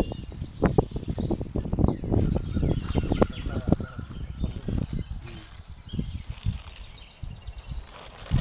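Brown baking paper crinkling and rustling in irregular bursts as it is folded by hand around raw chicken thighs into a parcel, with birds chirping.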